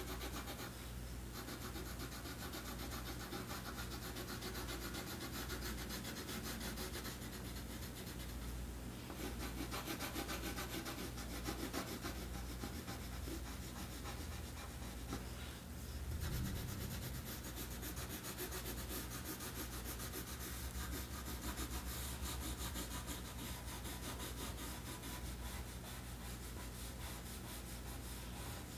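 Colored pencil scratching back and forth on paper in continuous shading strokes, over a low steady hum.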